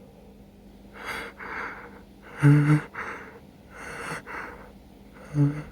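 A person's breathy gasps and inhales as a sneeze builds: four of them, starting about a second in, two ending in a short voiced "ah".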